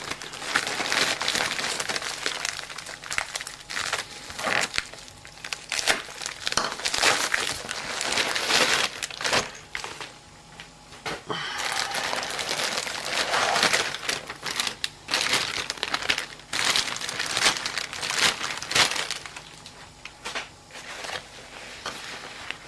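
Plastic packaging crinkling and rustling in irregular handfuls, with sharp crackles, as a poly mailer bag is opened and a folded backpack in a clear plastic bag is handled. It grows quieter near the end as the nylon backpack itself is unfolded.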